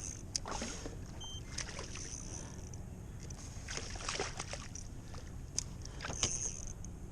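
Water splashing and sloshing against a kayak in short, irregular splashes as a hooked trout is brought up alongside the boat.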